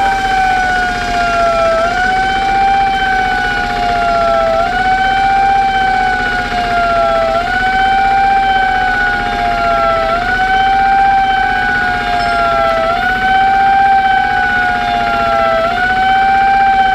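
A siren sounding continuously in a repeating cycle about every three seconds: the pitch jumps up, then slowly slides down before jumping up again.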